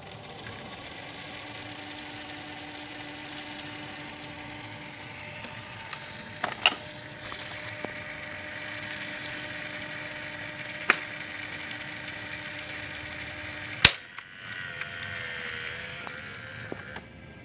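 A steady low hum with a few faint steady tones, broken by three sharp clicks, about six and a half, eleven and nearly fourteen seconds in; the last click is the loudest.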